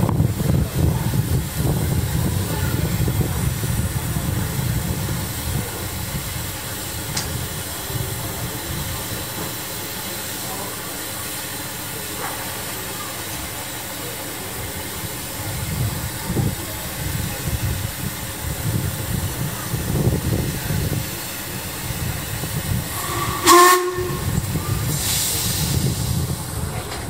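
Narrow-gauge steam train running with a steady low rumble. About three-quarters of the way through, one short steam whistle blast sounds, followed by a brief burst of steam hiss.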